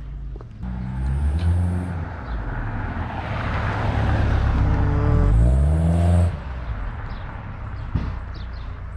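Road traffic: cars passing and accelerating, their engine note rising, with a surge of tyre and engine noise in the middle; the sound drops off suddenly about six seconds in.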